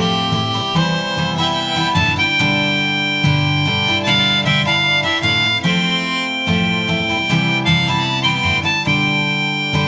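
Instrumental music, with no singing: a melody of held notes over a plucked-string accompaniment.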